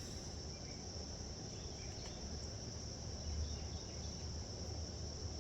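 Crickets trilling in a steady, unbroken high-pitched chorus, with a faint low hum beneath.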